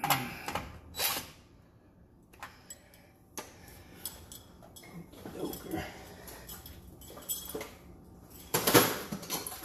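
A DeWalt 20V cordless impact driver runs in two short bursts on a screw in a water heater's sheet-metal top. Then come scattered knocks and handling noises, and a louder clatter near the end.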